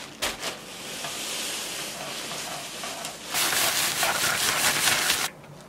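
Crushed biscuit crumbs pouring from a plastic bag into a saucepan of melted butter, sugar and cocoa, a steady hiss that grows louder about three seconds in and stops suddenly near the end.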